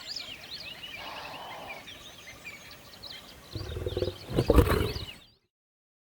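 Birds chirping, then about three and a half seconds in a Bengal tiger's low roar, the loudest sound, which stops abruptly after under two seconds.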